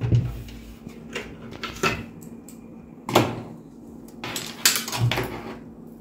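Light clicks, knocks and rustling from a PC power supply's ATX power cable being handled and routed against the computer cabinet. The sharpest knocks come about three seconds in and again shortly before the five-second mark.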